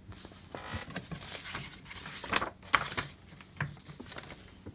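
Glossy paper rustling and crinkling as magazine pages are handled and turned, with several sharp crackles, the loudest a little past halfway.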